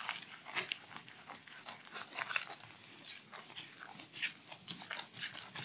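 Eraser being wiped across a whiteboard: faint, irregular scrubbing strokes.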